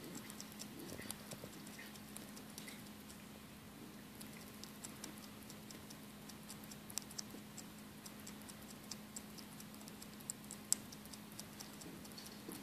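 Hoary bat chewing a mealworm: a run of faint, irregular small clicks, a few louder than the rest. A faint steady hum sits underneath.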